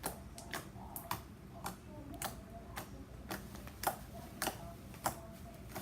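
Slime being squeezed and worked in the hands, giving sharp clicks and pops at uneven spacing, about two a second.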